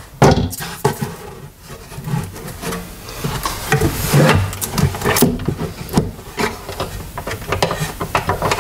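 Wooden organizer and plywood spacer pieces knocking and scraping against the inside of a wooden kitchen wall cabinet as they are slid and shifted into place. A sharp knock comes just after the start, then irregular knocks and rubbing.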